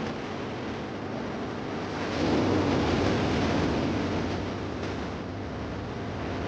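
Ocean surf washing onto a beach: a steady rush that swells about two seconds in and eases off again.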